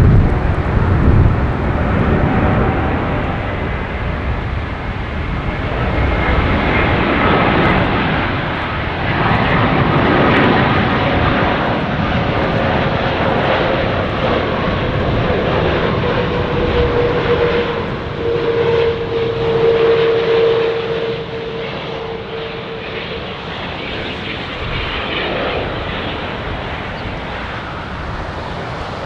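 Boeing 787-8 airliner's jet engines during landing: a loud, deep rumble carrying whining tones that slowly fall in pitch. The sound eases off over the last third.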